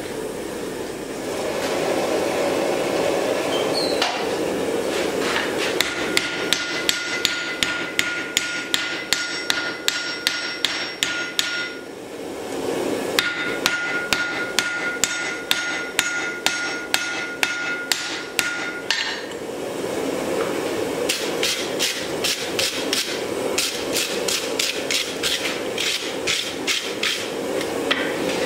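Hand hammer striking a red-hot axe head on an anvil in three runs of quick blows, about three a second. A steady ringing from the anvil carries through the first two runs, over a steady background rush.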